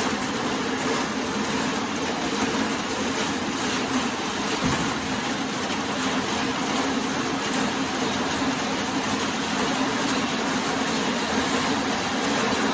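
Vehicle engine running steadily, a constant low hum under an even noise.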